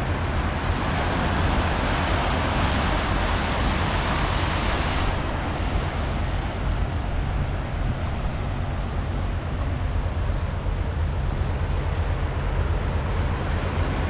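Small surf breaking and washing up over sand in a steady rush, brightest in the first five seconds and then easing off. A steady low rumble runs underneath.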